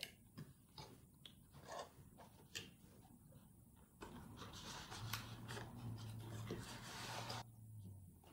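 Cardboard packaging being handled: faint scattered rustles and light taps, then about four seconds in a longer, steady rubbing as a tray is slid and lifted out of the cardboard box.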